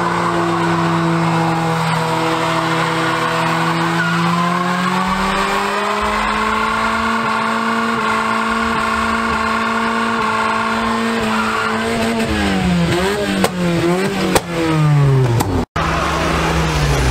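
Car engine held at high, near-steady revs during a burnout, with tyres squealing as the wheels spin in place. About twelve seconds in, the revs drop and the engine is blipped up and down a few times, and the sound cuts off briefly near the end.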